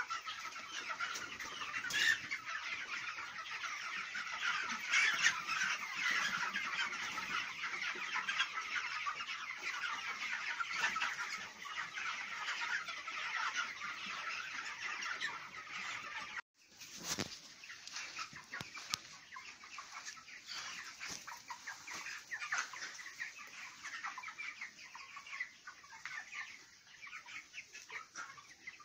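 A crowded flock of young broiler chicks, about two weeks old, chirping and peeping all at once in a dense, continuous chorus. The sound breaks off for a moment about sixteen seconds in, then goes on a little quieter.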